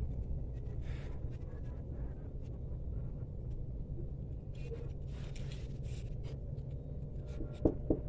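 Quiet background with a steady low rumble, scattered faint scratchy rustles and ticks from fingers handling the phone and the dry cicada shell, and two short squeaks near the end.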